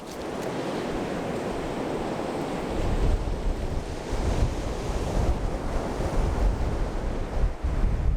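Surf washing onto the beach, with wind buffeting the microphone; the low rumbling gusts grow stronger about two and a half seconds in.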